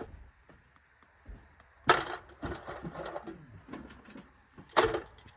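Metal sockets and hand tools clanking together: a sharp clank about two seconds in, lighter clinks after it, and another loud clank near the end.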